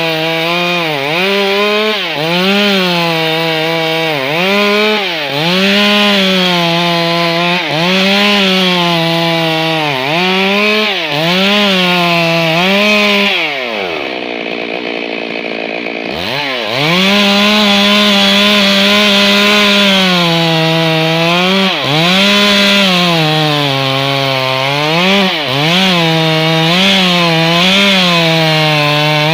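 Stihl MS 382 two-stroke chainsaw running at high revs while cutting wood. Its engine note dips and recovers every second or two. About halfway through it drops to idle for a couple of seconds, then revs back up.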